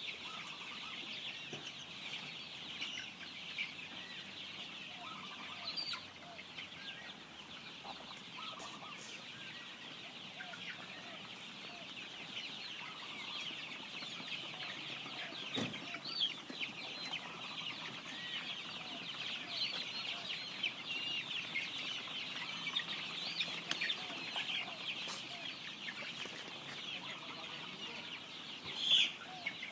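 A flock of free-range village chickens (ayam kampung) clucking, over a constant high chirping chatter. One louder call comes near the end.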